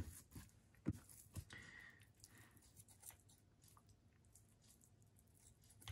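Near silence, with a few faint clicks and soft scraping from a knife trimming blood clots and sinew off a raw beef tongue.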